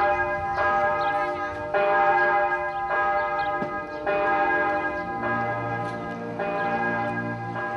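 Church bell tolling, struck about once a second, each stroke ringing on into the next. A low steady tone joins underneath about five seconds in.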